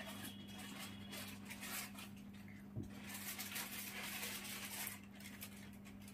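Faint handling and rustling of a flat-screen TV as it is pressed onto its stand legs, with a single soft knock nearly three seconds in, over a steady low hum.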